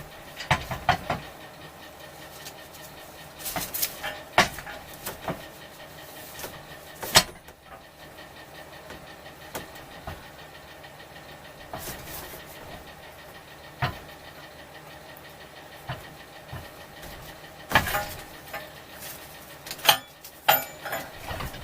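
Irregular metallic knocks and clanks as a motorcycle frame is lifted off its hanger and set down on a bike stand, over a steady low hum.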